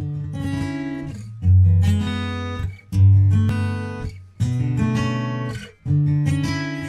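Intro music: acoustic guitar strumming chords, one strummed chord about every second and a half, each ringing and fading before the next.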